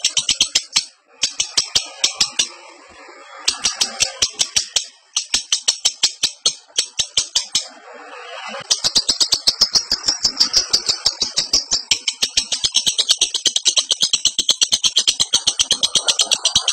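Lovebird in breeding condition giving its rapid chattering 'ngekek' song: long runs of sharp, high chirps, about nine a second, broken by a few short pauses.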